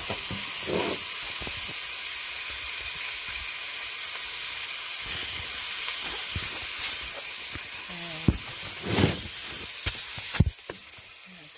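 Tofu frying in a pan, a steady sizzle. A few sharp knocks come near the end, and the sizzle drops away just before it ends.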